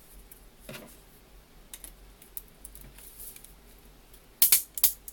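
3D-printed plastic support material being picked and broken off a printed part: a few faint clicks, then a quick cluster of sharp plastic snaps and clicks near the end.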